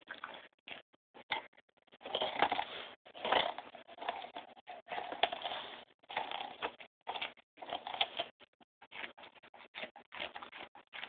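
A dog gnawing and crunching into the rind of a whole raw pumpkin: irregular bites and chewing with short pauses between them.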